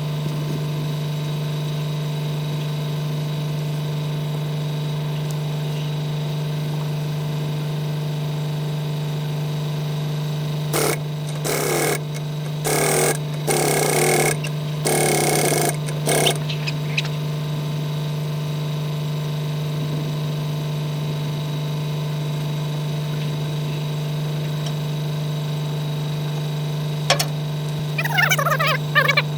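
A steady machine hum, with a run of short, louder noisy bursts about eleven to sixteen seconds in and a few more near the end.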